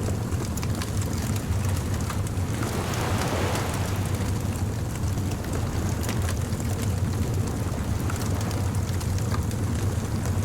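Beach bonfire ambience: a steady low rumble of surf with one wave washing in about three seconds in, over scattered small crackles of a wood fire.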